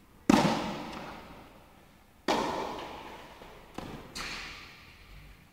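Tennis ball being struck and bouncing, sharp pops that echo through a large indoor tennis hall. A loud one comes shortly after the start and another about two seconds in, then two lighter ones close together around four seconds in.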